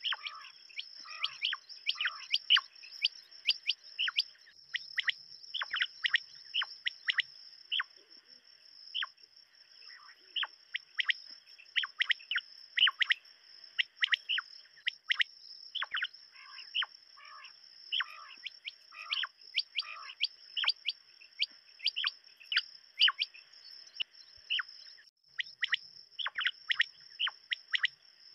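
Common quail calling: many short, sharp notes in quick irregular runs, over a steady high-pitched drone.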